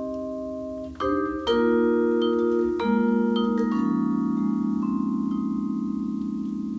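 Yamaha vibraphone played with mallets in a slow blues. Chords are struck about a second in and again over the next few seconds, then a low chord is left ringing with a pulsing waver.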